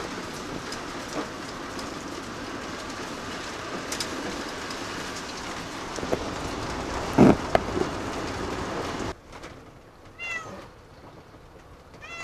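Steady road and engine noise inside a camper van driving on a wet road, with one brief louder sound about seven seconds in. The noise cuts off abruptly about nine seconds in, leaving a quieter background with a few short, high, falling chirps.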